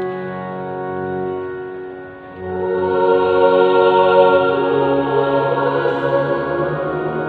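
Organ holding sustained chords to close the introduction, fading briefly about two seconds in; then the choir comes in singing the hymn with organ accompaniment, many voices together.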